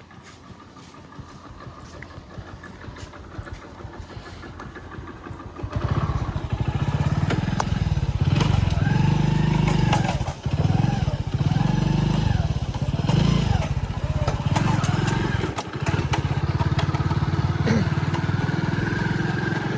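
A vehicle engine running, faint at first, then loud from about six seconds in, its pitch rising and falling again and again before it settles.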